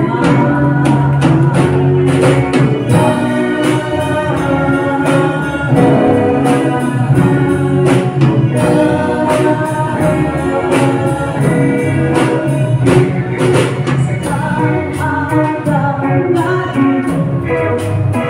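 Live band playing a song on drum kit, electric guitar, bass guitar and keyboard, with a voice singing over it.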